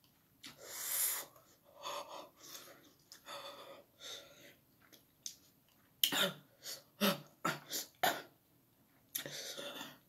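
A person breathing hard and blowing out through the mouth against the burn of very spicy noodles: a long exhale about a second in, softer breaths, then a run of short sharp huffs and another long breath near the end.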